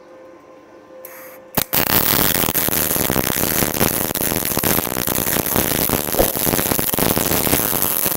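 MIG welding arc on steel plate, struck with a sharp click about a second and a half in, then crackling steadily as the bead is laid.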